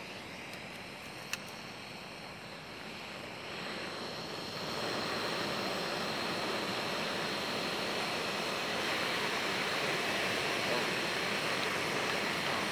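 Jetboil backpacking stove's gas burner hissing steadily just after being lit, growing louder about four to five seconds in. A single sharp click sounds about a second and a half in.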